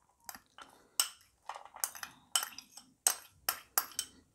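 Metal spoon clinking and scraping against a small ceramic bowl as chopped onion is scraped out onto a plate: a quick, irregular series of about a dozen sharp clinks.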